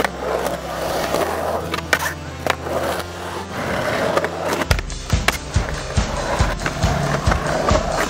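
Skateboard wheels rolling on a concrete skatepark bowl and ramps, with board knocks and clacks, mixed with background music whose drum beat comes in just past halfway.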